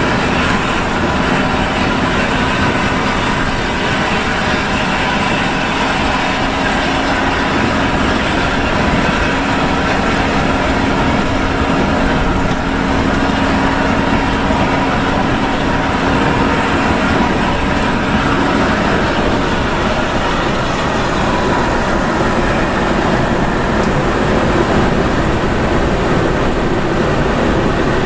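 A coach's engine and tyre noise heard from inside the driver's cab at highway speed on a wet road: a loud, steady rumble and hiss. A steady engine hum under it fades out about two-thirds of the way through.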